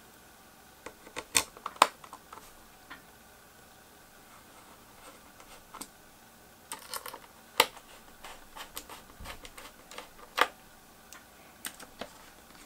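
Irregular light clicks and taps of small screws and a precision screwdriver while a graphics card's backplate is screwed on by hand. The clicks come singly and in short clusters, the loudest near the start, in the middle and about two-thirds through.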